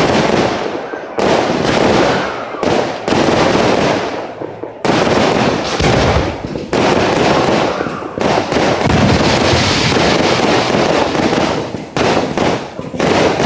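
Fireworks display: aerial shells launched and bursting in quick succession, a loud, almost unbroken barrage of bangs with crackling between them.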